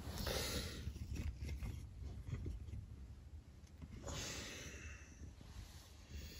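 A person breathing out softly twice, like sighs, about four seconds apart, over a faint low rumble.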